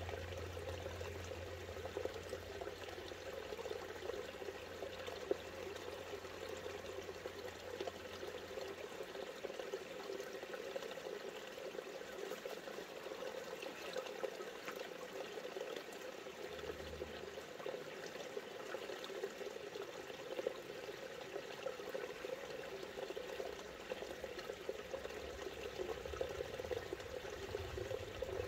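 Creek water rushing steadily.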